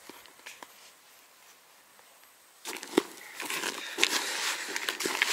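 A hand kneading damp, gritty groundbait mixed with pearl barley in a plastic bucket: faint crunching and squishing with a few clicks at first, then from about halfway a louder, busy crackling as the mixing speeds up. The bait is being worked until it clumps into balls.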